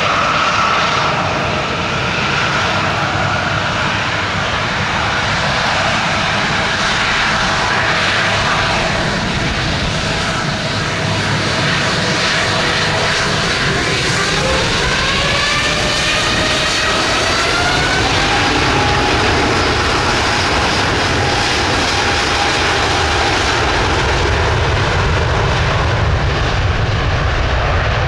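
Airbus A350's Rolls-Royce Trent XWB jet engines running as it taxis, a steady loud jet noise with a whine that rises in pitch about halfway through.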